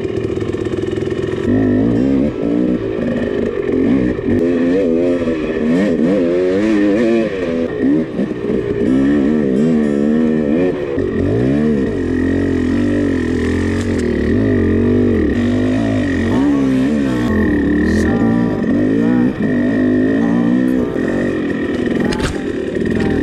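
Dirt bike engine revving up and down as the rider works the throttle, its pitch rising and falling every second or so.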